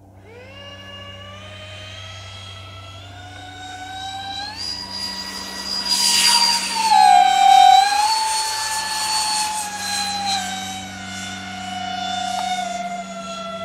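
Twin electric ducted fans of a scale Freewing Su-35S RC jet spooling up to full power for takeoff, a whine rising in pitch and growing louder as the model rolls and lifts off. It is loudest as it passes close by about six to eight seconds in, the pitch dipping as it goes past, then settles into a steadier whine as it climbs away.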